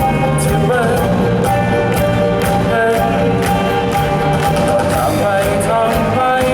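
A band playing a song with singing over a steady drum beat.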